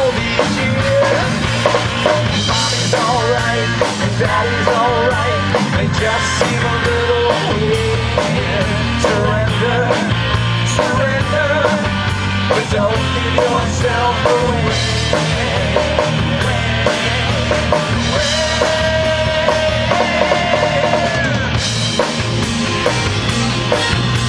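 Live rock band playing at a steady, loud level: electric guitar over a drum kit, amplified through a small PA.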